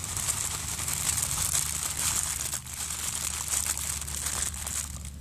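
Plastic ramen noodle packet being handled and crinkled, a dense run of crackling rustles.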